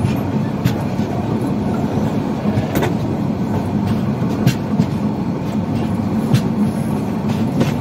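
Passenger train running at speed, heard from an open coach door: a steady rumble of wheels on the track with a faint low hum and occasional sharp clicks.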